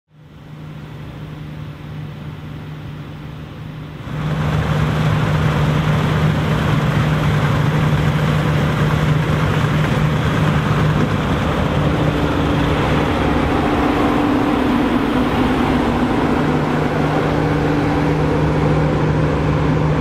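New Holland combine harvesters threshing barley, engines running under load: a steady deep drone with a constant hum. It gets much louder about four seconds in, and a second, higher hum joins about halfway.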